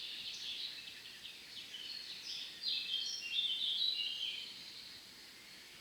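Birds singing: a quick run of short, high chirps and trills, loudest in the middle and dying away near the end.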